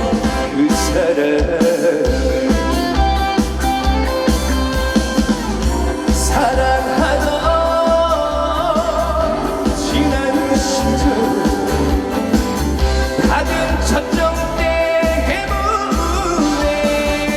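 Live trot song played through a PA system: full band backing with a steady pulsing bass beat under a held, wavering melody line.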